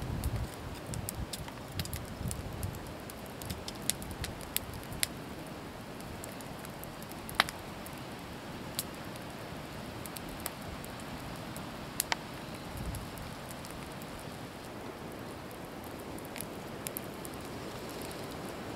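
Wood campfire crackling: scattered sharp pops, a few of them louder, over a soft steady hiss.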